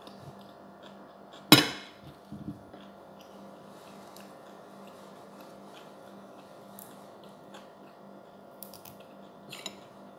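Close-up eating sounds of a meal of fried fish and rice eaten by hand: faint scattered mouth and finger clicks, one sharp loud click about a second and a half in, and a few smaller knocks near the end. Under it all runs a steady machine hum.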